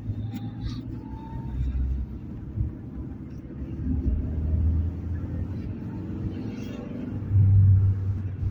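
Low, uneven rumble that swells several times and is loudest near the end, with a few faint clicks.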